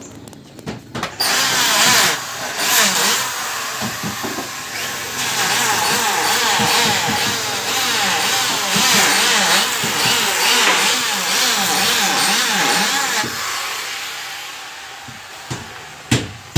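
Electric wood planer shaving a wooden beam: a loud, steady cutting noise starts about a second in, the motor's pitch wavering under load, then dies away. A couple of sharp knocks come right at the end.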